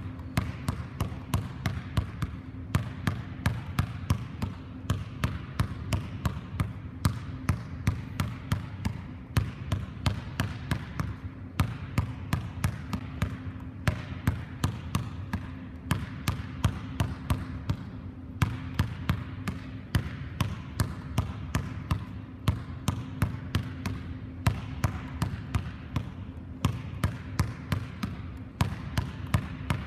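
A basketball dribbled on a hardwood gym floor in a quick, steady rhythm of bounces, several a second, with a low steady hum underneath.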